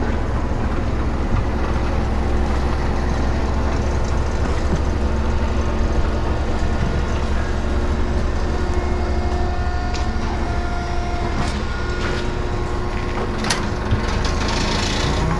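A vehicle engine running steadily with a low drone, with a few sharp metallic clanks about two-thirds of the way through.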